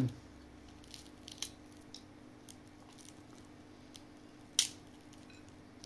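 Quiet eating sounds: a handful of small mouth clicks and smacks while chewing fish and rice, the sharpest about four and a half seconds in. A low, steady hum runs underneath.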